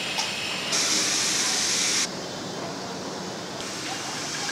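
Steel-cutting machine running with a steady noisy hiss; a loud, high-pitched hissing grind comes in about 0.7 s in and stops abruptly about two seconds in, as the cutting work bites the metal.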